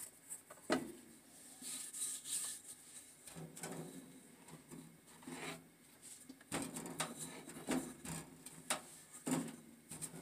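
Wooden rolling pin and hands working flatbread dough on a floured wooden board: irregular soft knocks of wood on wood, with rubbing and patting between them.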